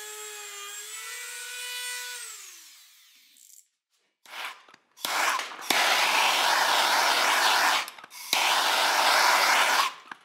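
A handheld rotary tool whines at a steady pitch as its burr cuts into pine, then falls in pitch and spins down about two and a half seconds in. From about four seconds in, a gas torch's flame hisses loudly in several long stretches with short breaks, scorching the carved wood.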